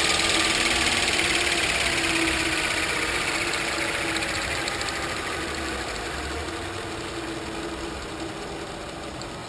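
RC helicopter's motor and rotor running with a steady hum and hiss, fading gradually.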